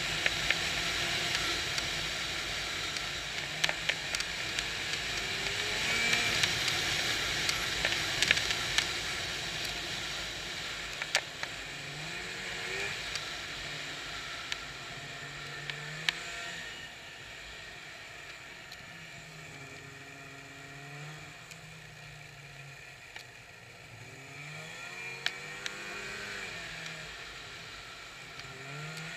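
Snowmobile engine running on the move, its pitch rising and falling with the throttle, over a steady rushing noise, with scattered sharp clicks. It runs quieter from about halfway through.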